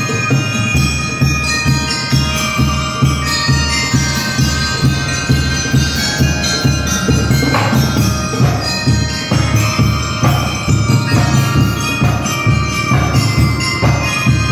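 Drum and lyre corps playing, with bell lyres carrying a ringing melody over a steady drum beat.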